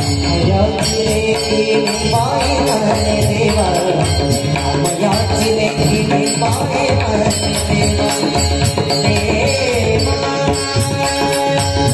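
Marathi devotional abhang singing: a male voice drawing out ornamented, wavering phrases without clear words, over a steady drone, regular drum strokes and small hand cymbals keeping the beat.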